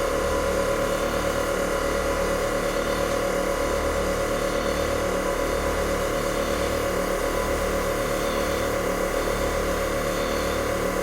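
Air-ride suspension compressor running steadily with a slow, even pulse, building pressure in the air tank toward its shut-off point.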